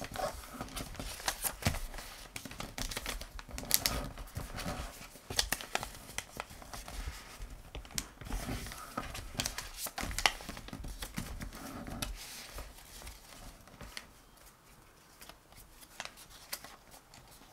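Printed paper cutout being folded and creased by hand: irregular rustles, crinkles and short sharp taps, busiest for the first twelve seconds, then sparser and quieter.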